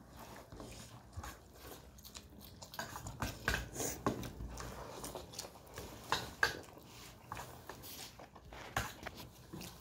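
Close-up eating sounds: chewing a mouthful of rice and egg, with irregular wet mouth clicks and a few louder smacks, and fingers working through the rice in a steel bowl.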